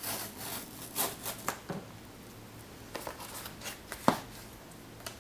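Hands handling the Apple Pencil's packaging: scattered rustling and light taps, with one sharp click about four seconds in.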